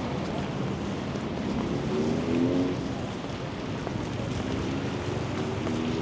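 Steady hiss of falling rain over a low rumble, with faint pitched sounds drifting in about two seconds in and again near the end.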